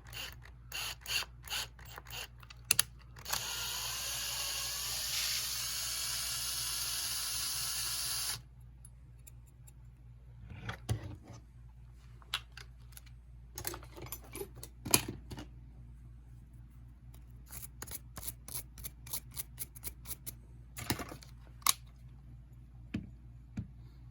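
Small metal tools clicking and tapping against a die-cast toy car during thread tapping. A small motor runs steadily for about five seconds a few seconds in, its pitch edging upward.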